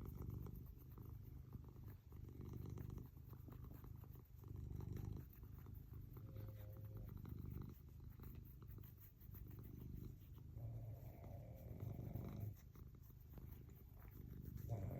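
Domestic cat purring, a low rumble that swells and fades about every two seconds. A sleeping person's snore comes in about eleven seconds in and again at the very end.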